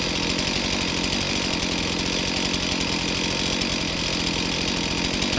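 Two-stroke chainsaw running steadily at a constant level.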